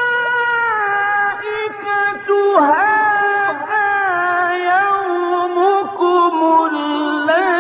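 A male Quran reciter's voice in melodic mujawwad recitation, holding long ornamented notes that glide down and waver.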